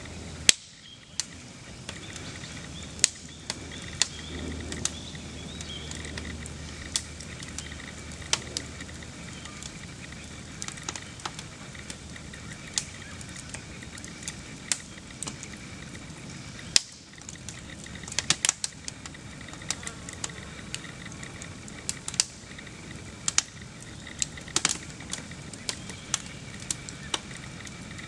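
Fire burning in an upright piano: wood crackling, with irregular sharp pops, some coming in quick clusters, over a steady low hiss.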